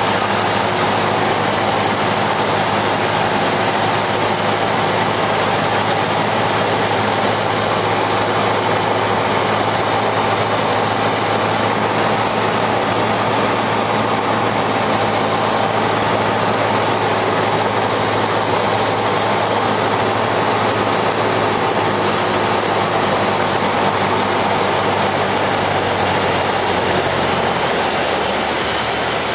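Cessna 172's piston engine and propeller droning steadily, heard inside the cockpit with airflow noise over it. Near the end the engine note drops as power comes back.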